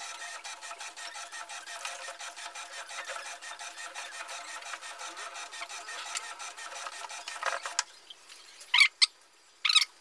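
Whirlpool fully automatic top-load washing machine agitating its wash load: a steady, rhythmic churning of about five strokes a second that stops suddenly about eight seconds in. Three short, sharp, high chirps follow near the end.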